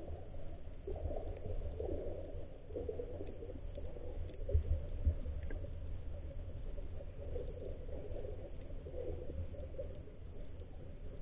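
Muffled underwater noise heard through a camera's waterproof housing: a steady low rumble of moving water with irregular sloshing, and a couple of low thumps about four to five seconds in.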